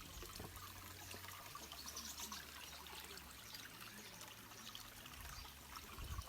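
Water trickling steadily, over a low steady hum.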